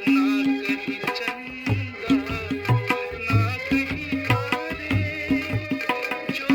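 Tabla playing a steady rhythm, with deep bass strokes and ringing treble strokes, over the melodic instrumental accompaniment of a Hindi film song.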